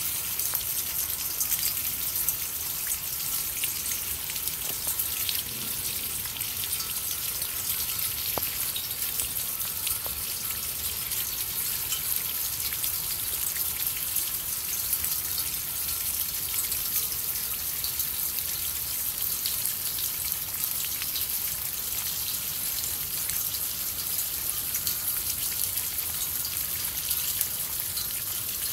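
Rainwater pouring and splashing down through the cups of a copper lotus-cup rain chain, over steady rain with scattered drips.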